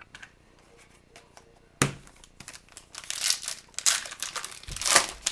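Card pack wrapper being torn open and crinkled: a sharp click about two seconds in, then a run of crackly tearing and crinkling, loudest near the end. These are the packs of a 2022-23 Upper Deck Series 2 hockey retail box.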